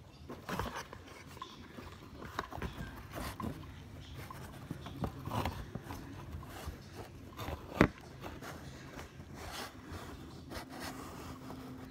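Phone handling noise: irregular rubbing, scraping and small clicks as the phone is moved about against a window screen, with one sharp click about 8 seconds in.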